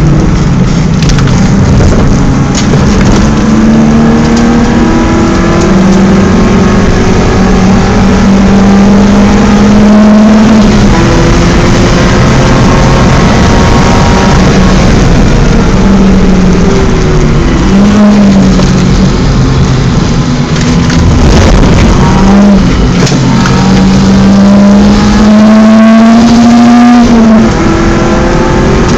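BMW 318is four-cylinder engine at racing revs on track. The pitch climbs slowly under acceleration and falls sharply at each gear change or lift, over heavy wind and tyre noise.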